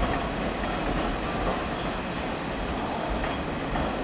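Hanshin electric train cars rolling along depot tracks: a steady rumble of wheels on rail.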